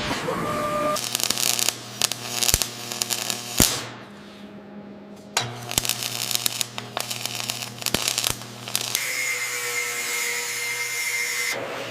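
A power tool's motor running in two spells of about three seconds each, with a steady hum and rapid rattling clicks and a short quieter gap between them, then a steady whine for the last few seconds.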